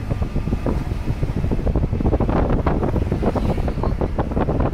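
Wind buffeting the microphone from a moving car's open window, over a steady low road rumble; the gusts grow stronger about two seconds in.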